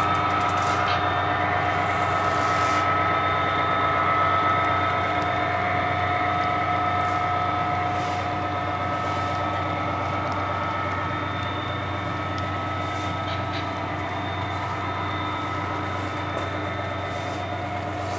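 HO scale model freight cars rolling past on the layout's track: a steady mechanical hum with constant tones and a few light clicks, getting slightly quieter in the second half as the end of the train goes by.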